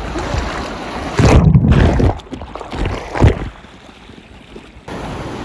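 Sea waves breaking on the beach: a loud rush of water about a second in and a shorter surge about two seconds later, with wind on the microphone.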